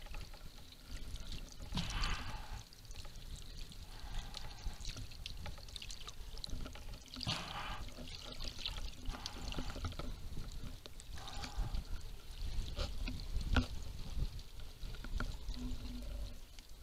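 Underwater sound through a camera housing: faint water swishing and trickling, with a low rumble and scattered small clicks, as a spearfisher swims fast after a fish.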